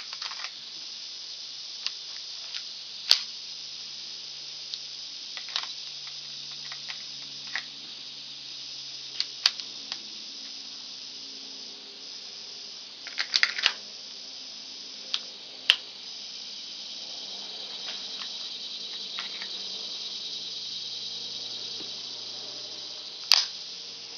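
Scattered sharp clicks and clacks of a Ruger Mk III 22/45 pistol being handled to clear a failure to feed, including a quick cluster around the middle and a louder one near the end, over a steady high hiss.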